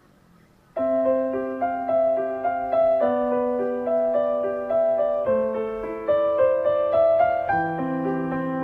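Background piano music that starts suddenly about a second in, after a moment of near silence, with a melody of changing notes over held lower notes.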